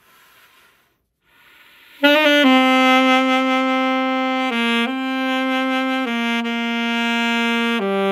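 Alto saxophone, after a faint breath, plays a slow phrase from about two seconds in: a few long held notes, the first one scooped up into pitch, with short steps down and back up between them.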